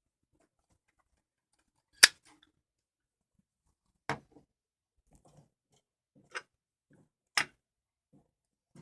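Metal clacks of a Zippo lighter's hinged lid being snapped open and shut: four sharp clicks about two seconds apart, the first the loudest.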